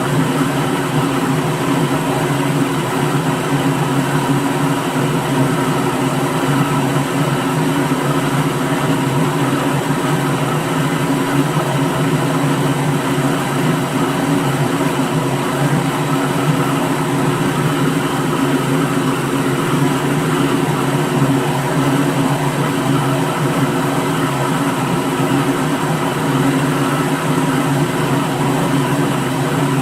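Electric kitchen blender running steadily at constant speed, a loud even motor whir with no change in pitch.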